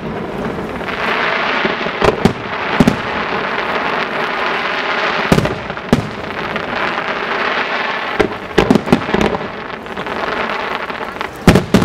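Fireworks display: aerial shells bursting with sharp bangs at irregular intervals, several coming in quick clusters, over a continuous hiss.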